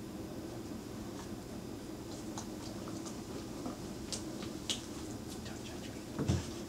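Quiet indoor room tone with a steady low hum, faint scattered clicks and ticks, and one short, soft low thump near the end.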